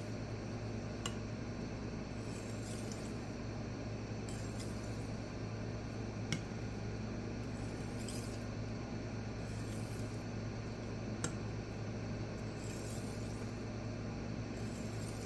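Light, slow strokes of a steel kitchen knife edge across a small resin-bonded diamond pocket stone, a faint scrape roughly every second and a half to two seconds with an occasional sharp click, as the burr is worked off the edge.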